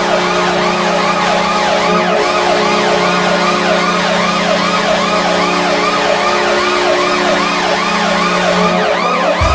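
Washington Capitals arena goal horn blowing a long, steady, low blast, layered with a siren-like wail that rises and falls about twice a second. Both cut off together right at the end.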